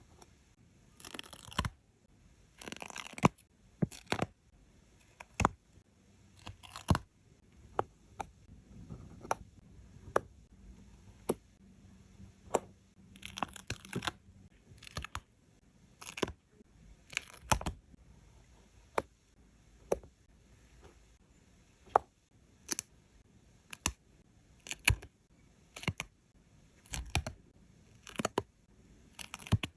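Stickers being peeled off their backing sheet in short tearing rasps, among frequent light taps and clicks as they are handled and pressed into place.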